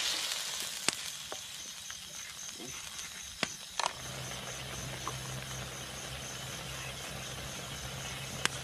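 Squid in coconut milk simmering with a soft sizzle in a wok over a wood fire, with a few sharp clicks of a wooden spatula knocking the pan. About four seconds in the sound changes to a steady low hum with a faint high, evenly pulsing trill over it.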